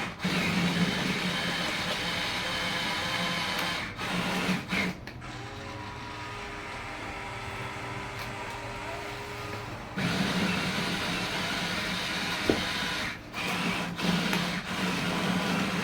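Small electric motors and plastic gears of remote-control construction toys whirring. The sound stops and restarts several times, with a steadier, quieter stretch in the middle.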